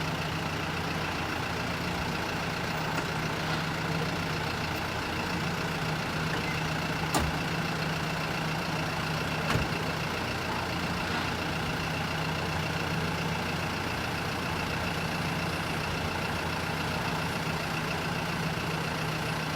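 Bus engine running steadily with a constant hum, with two brief knocks about seven and nine and a half seconds in.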